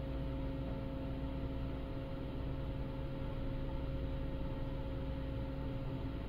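A car ferry's engines and machinery running, heard on board as a steady low drone with a constant hum; nothing in it rises, falls or breaks off.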